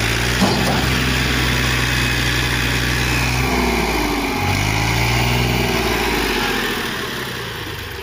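Farm tractor engine running hard under load as it pulls a stuck trailer on a chain; its pitch drops about halfway through, picks up again, and eases off near the end. A short knock sounds just after the start.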